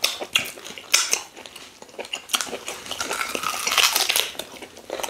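Close-up mouth sounds of eating by hand: sharp wet smacks and clicks as fingers are licked clean. About three seconds in comes a longer, slurping bite of fufu dipped in egusi soup.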